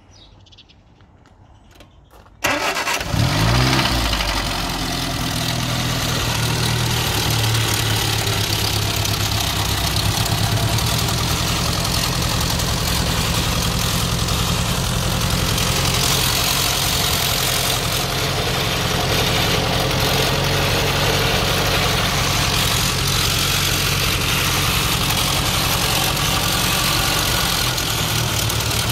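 Cold start of a 1962 Austin Mini's A-series four-cylinder engine: it fires about two seconds in, flares up briefly in pitch, then settles into a steady idle.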